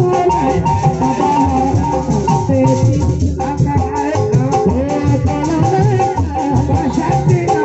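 Live Sundanese jaipongan music, played loud: a steady drum rhythm with rattling percussion and a wavering melodic line over it.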